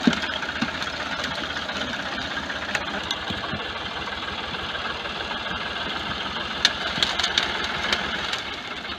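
Ford 4560 tractor's diesel engine running steadily as it pulls a loaded trolley through a soft, rutted field. A few sharp clicks come about seven seconds in.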